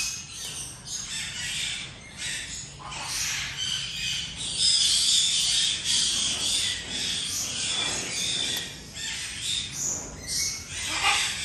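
Macaws squawking, a run of harsh calls and shorter chirps, most continuous about halfway through.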